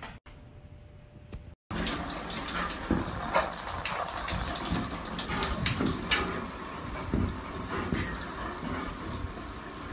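Shower running, with water spraying steadily and irregular taps and splashes against the glass; it begins suddenly about two seconds in.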